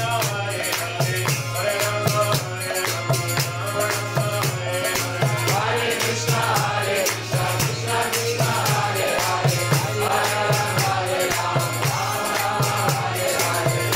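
Devotional kirtan: a group of voices chanting a mantra together, with jingling hand percussion keeping a steady beat over a low sustained drone.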